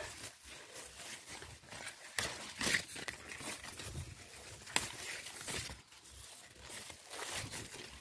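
Thin plastic bag tied over a fig on the branch, rustling and crinkling in irregular crackles as it is handled.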